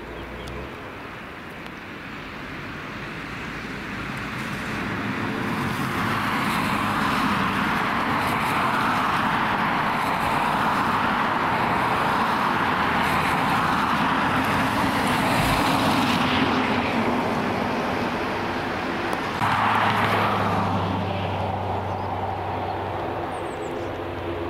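Ryanair Boeing 737 jet engines running at takeoff power as the airliner rolls down the runway; the noise swells over the first several seconds, then holds loud. About 19 seconds in, the sound changes abruptly to a steadier, lower engine hum from another airliner on approach.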